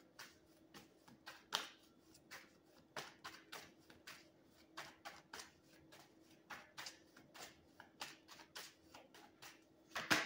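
Tarot cards being shuffled by hand: a long irregular run of soft, quick card slaps and flicks, a few each second, over a faint steady hum.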